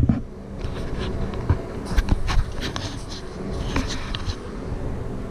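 Scattered light clicks and knocks of tools or pipe fittings being handled during plumbing work, over a steady low hum.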